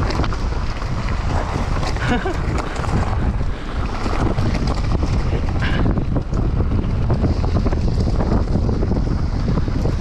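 Wind rushing over the microphone of a camera on a mountain bike riding fast down a dirt trail, over the steady noise of tyres rolling on dirt and scattered rattles and knocks from the bike.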